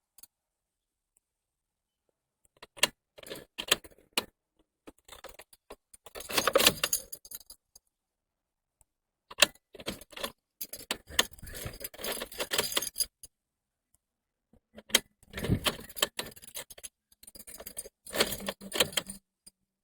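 A bunch of car keys jangling on the key ring as the key is worked in the ignition, in several separate bursts with short silences between them. There is no engine running or cranking.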